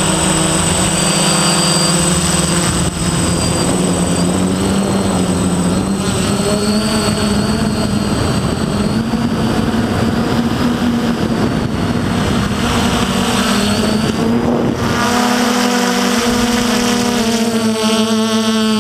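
F450 quadcopter's four electric motors and propellers whirring in flight, their pitches drifting up and down as the throttle changes, over a steady high whine.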